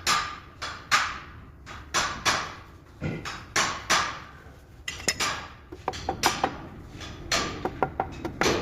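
A hammer striking metal again and again, each blow ringing briefly, about one to two blows a second. From about five seconds in the blows come quicker and lighter.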